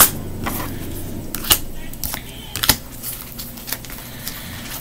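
Oracle cards being handled: a few separate sharp clicks and taps as cards are flicked and laid down, the loudest about a second and a half and two and a half seconds in.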